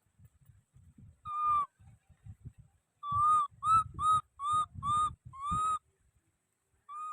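Baby monkey giving short, high, whistle-like cries: one, then a quick run of about six, then one more near the end, over soft knocks and rustling.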